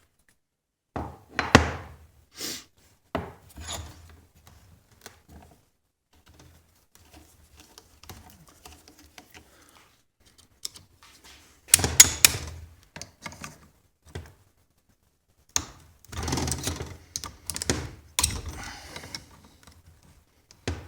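Irregular metal clunks and knocks of hand tools and vise parts being handled during disassembly, in bursts a few seconds apart with lighter ticks between.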